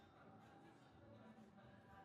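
Near silence: faint room ambience.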